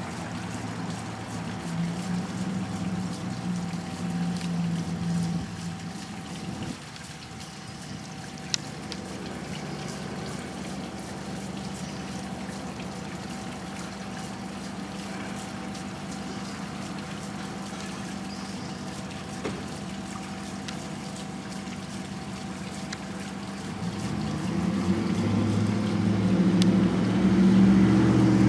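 Water pouring and trickling onto a small wooden water wheel, a steady even hiss. A low hum lies under it at the start, and a louder low rumble rises near the end.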